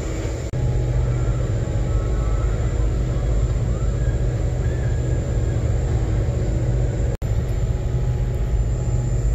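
Fast catamaran ferry under way: a steady low engine drone with a constant hum, mixed with the rush of water and air. It gets louder about half a second in and cuts out for an instant about seven seconds in.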